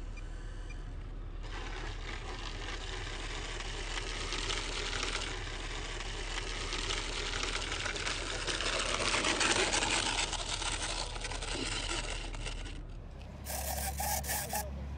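Small electric RC model plane's motors and propellers whirring. The sound starts about a second and a half in, swells to its loudest past the middle and fades. A brief crackling comes near the end.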